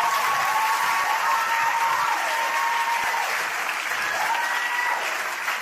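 Large theatre audience applauding and cheering after a punchline, dense and steady, easing slightly near the end.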